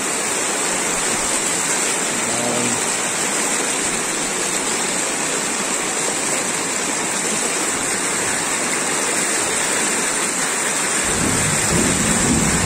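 Fast-flowing floodwater rushing across a road, a steady, unbroken rush of water. A low rumble comes in near the end.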